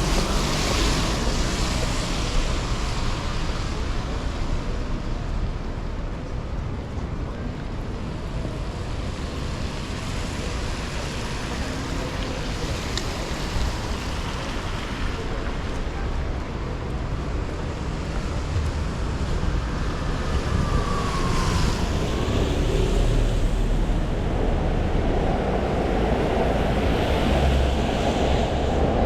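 Steady rush of rain and strong wind buffeting the microphone over street traffic, with a short falling whine about two-thirds through. It grows louder near the end.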